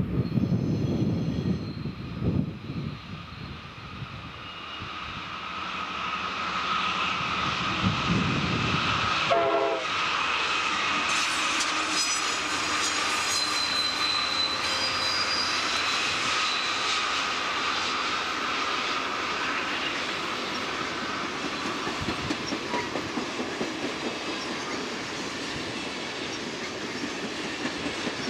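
An Amtrak passenger train passes close by, its GE Genesis P42DC diesel locomotives leading and Superliner cars following, with steady rolling wheel-on-rail noise. There is wind on the microphone at first, then a brief horn note about nine seconds in. After that come thin high squeals from the wheels on the curve.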